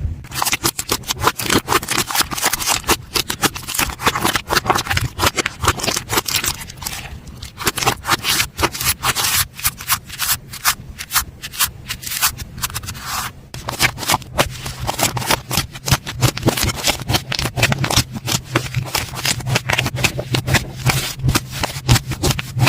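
Slime being squeezed and worked by hand close to the microphone, giving a dense run of small crackling clicks and pops.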